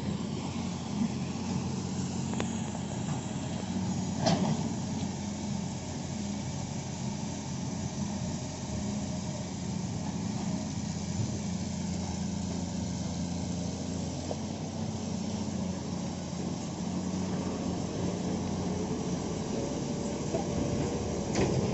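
Heavy-equipment diesel engine running steadily, with a short sharp knock about four seconds in.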